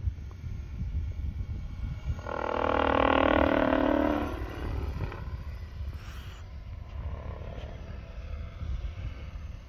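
Model helicopter flying past: its motor and rotor whine swells to a loud pitched hum as it comes closest, about three seconds in, then fades within a couple of seconds.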